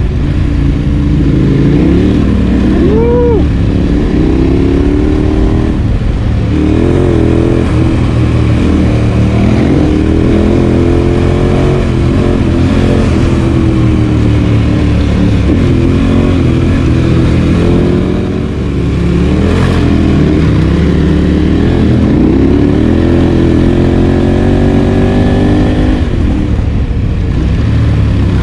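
Adventure motorcycle engine under way, its note rising and falling again and again with throttle and gear changes over a steady rushing noise. It eases off briefly about two-thirds of the way through.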